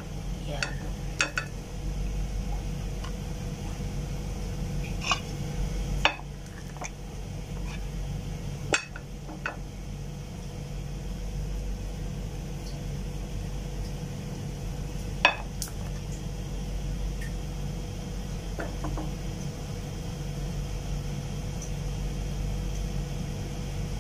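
Scattered light clicks and clinks, about ten of them, as a plastic scoop knocks against plastic puto molds on a metal steamer tray while batter is poured in. A steady low hum runs underneath.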